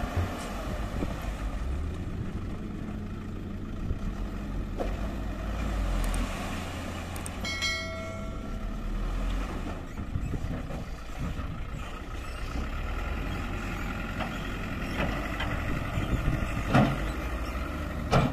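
Hino Dutro dump truck's diesel engine running steadily while its tipper bed is raised to dump soil. A short steady tone is heard about eight seconds in, and a couple of sharp knocks come near the end.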